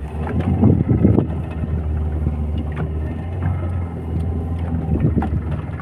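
A boat's engine hums steadily, with wind buffeting the microphone and a few light knocks.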